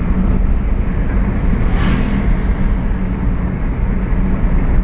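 Steady engine and road rumble of a moving car, heard from inside, with a short rushing hiss about two seconds in.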